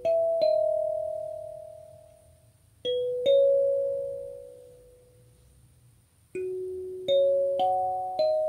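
Kalimba with metal tines on a wooden body, played slowly note by note. Each plucked tine rings out and fades: two notes at the start, two about three seconds in, and a run of four near the end.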